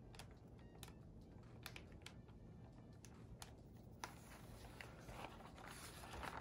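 Faint, scattered ticks and crackles of thin handmade paper being peeled off inked relief-block pieces, the tacky ink letting go of the sheet. A soft paper rustle rises near the end as the sheet is lifted free.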